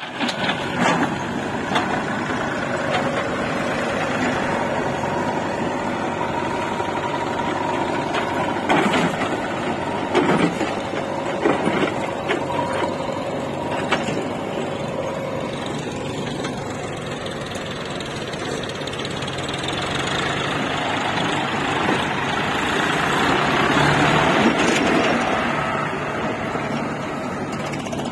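Diesel engines of a JCB 3DX backhoe loader and an Eicher 485 tractor running while the backhoe digs and lifts soil. Several sharp metal clanks come between about 9 and 14 seconds in, and the engine noise swells about three-quarters of the way through.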